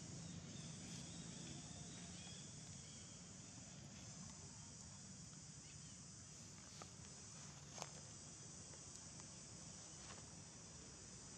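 Faint, steady, high-pitched drone of an insect chorus, with two soft clicks about two-thirds of the way through.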